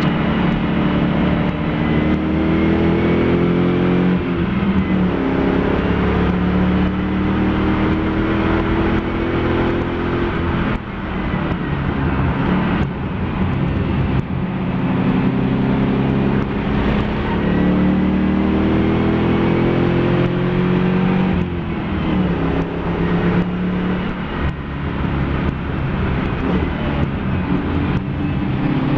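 A race car's Mopar engine, swapped into a Nissan Fairlady Z, pulls hard under load. Its pitch climbs through the revs and drops suddenly at each gear change, several times over: the car is being driven at racing pace through the gears.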